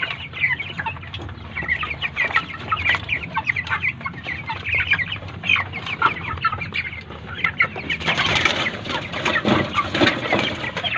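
A flock of broiler chickens calling, many short cheeps and clucks overlapping. About eight seconds in, a louder, noisier commotion among the birds rises over the calls.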